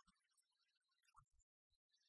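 Near silence: only faint scattered specks of noise, with a complete dropout about a second and a half in.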